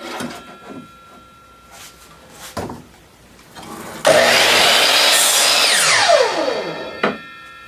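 Mitre saw motor switched on about four seconds in and cutting through a wooden board, then released, its whine falling steadily as the blade spins down, followed by a sharp clunk.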